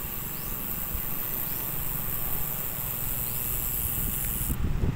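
Wind rumbling on the microphone of a phone carried on a moving bicycle, over a steady high hiss that cuts off near the end.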